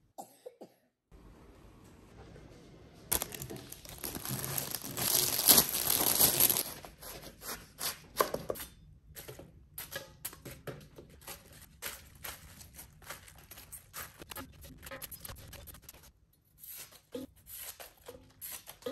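A large kitchen knife cuts through napa cabbage, with the loudest crisp cutting noise a few seconds in. Then come irregular light taps and rustles as the cabbage pieces drop into a stainless steel bowl and are handled there.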